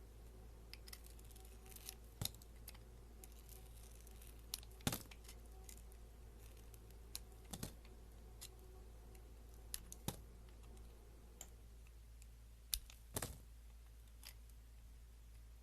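Knife cutting a bar of soap into cubes: crisp clicks and snaps as the blade goes through the soap, a louder one every two to three seconds with faint ticks between, over a low steady hum.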